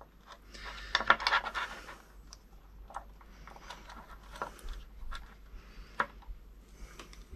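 Light clicks, taps and scrapes from working a soldering iron and solder wire on motor wires at an MT60 connector, with a short scraping hiss about a second in.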